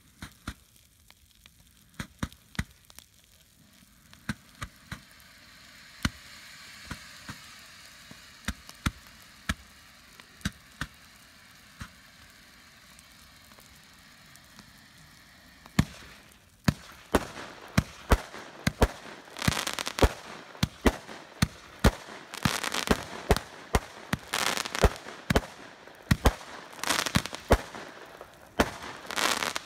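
Aerial fireworks going off: sharp single bangs about once a second over a faint hiss. About halfway through this gives way to a dense, louder run of rapid bangs and crackling bursts.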